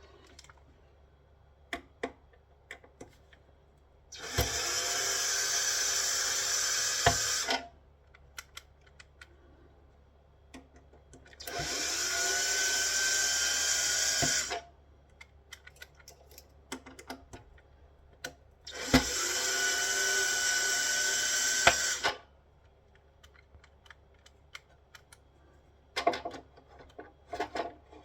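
Cordless drill with a screwdriver bit running in three bursts of about three seconds each, backing screws out of a solar inverter's case. Light clicks and knocks of handling in the gaps between.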